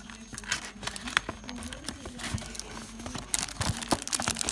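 Clear plastic packaging bags crinkling as hands handle the accessories in a cardboard speaker box, with scattered small clicks and taps. The crinkling gets busier about three seconds in.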